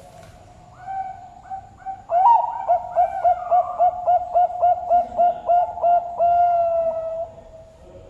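Bangkok-type zebra dove (perkutut) cooing: a few soft opening notes, then a loud run of quick, evenly spaced coos, about three or four a second, ending in one long drawn-out note.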